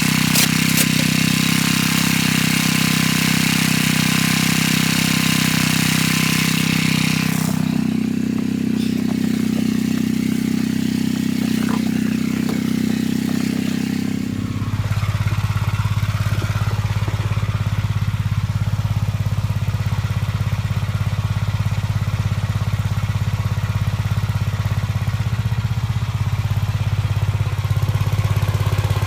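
1959 Gravely Model L's single-cylinder engine running steadily under a high hiss that stops about seven seconds in. About halfway through, the engine drops to a lower steady speed.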